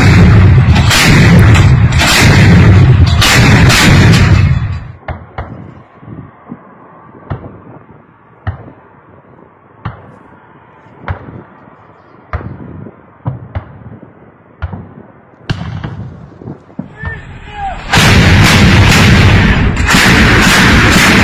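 57 mm S-60 automatic anti-aircraft gun firing in rapid bursts, very loud and clipping. Midway the firing drops to a quieter stretch of single sharp reports about a second apart, and loud close firing resumes near the end.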